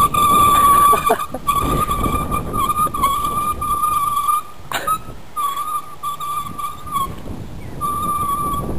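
Scooter brake squealing with a steady high-pitched tone that cuts out briefly a few times and picks up again. A rough rolling rumble sits underneath, strongest in the first half.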